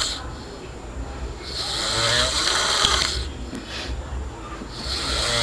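A person snoring, with long, hissing snores about every three seconds: one trails off at the start, a full one comes in the middle, and another begins near the end.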